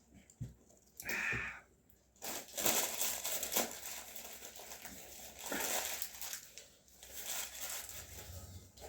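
Food packaging crinkling and rustling as it is handled, in irregular bursts.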